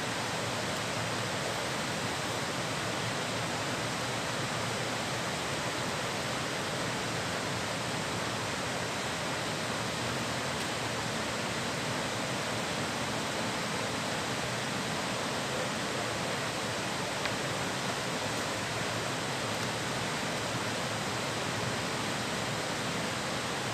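Steady rushing of flowing river water, an even hiss that stays at one level throughout.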